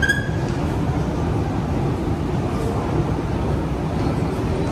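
Metro escalator running with a steady low mechanical rumble, heard from on board as it carries riders down the inclined tunnel. A brief high tone sounds right at the start.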